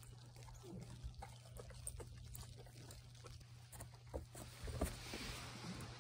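A bullmastiff's paws stepping faintly through fresh snow, with scattered soft crunching ticks and a short soft rustle near the end as it noses the snow. A steady low hum sits underneath.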